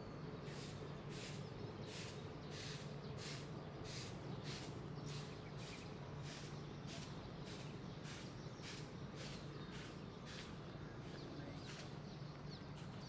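Footsteps walking steadily along a stone-paved path, short scuffing steps a little over two a second, over a steady low outdoor hum.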